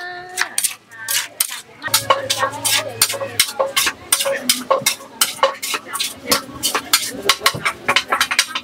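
Wooden pestle pounding salad ingredients in a large clay mortar: quick, sharp knocks several times a second.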